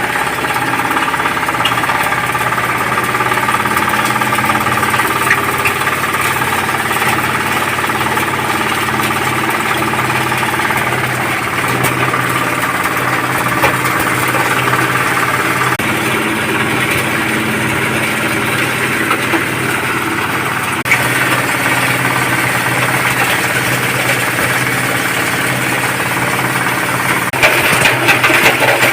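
Shell powdering mill (penepung) running steadily with a loud, even machine drone and grinding noise. It gets harsher and louder near the end.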